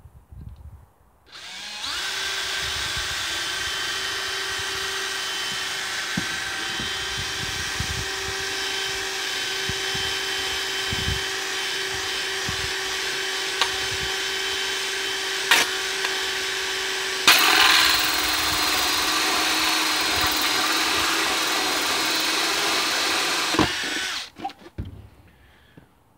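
DeWalt cordless drill boring a hole through a plastic water butt. It runs with a steady whine for about fifteen seconds, with a single click partway through, then jumps louder and higher-pitched for about six seconds before stopping.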